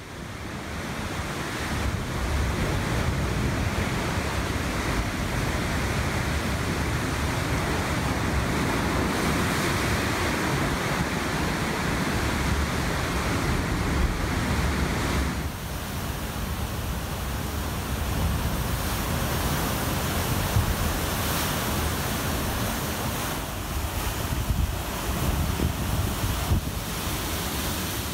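Ocean surf crashing and surging over rocks, a continuous rush of churning white water, with wind buffeting the microphone. About halfway through, the sound changes abruptly to a somewhat thinner surf.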